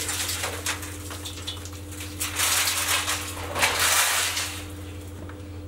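Galvanised sheet-metal and wire-mesh cage sections scraping and clattering as a cage is handled and pulled apart, with two longer scrapes about midway. A steady low hum runs underneath.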